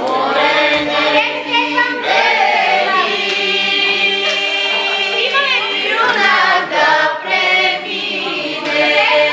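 A group of girls and young women singing a Bulgarian folk song together in full voice, unaccompanied, holding long notes and sliding between them.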